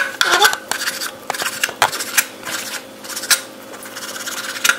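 Chef's knife slicing through raw bacon strips and tapping down on a plastic cutting board. The knocks are irregular: several in quick succession, then a couple of spaced-out ones after about two seconds.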